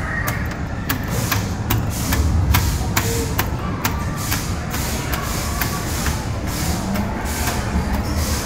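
Amusement arcade din: a steady low rumble of machines with irregular sharp clicks and clatter, about two or three a second.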